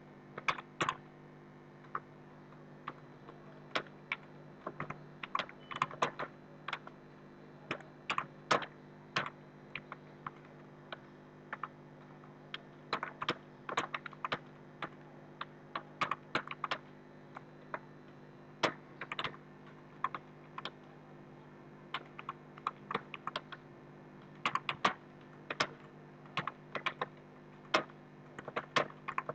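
Computer keyboard being typed on steadily: quick, uneven runs of key clicks with short pauses between words, over a low steady hum.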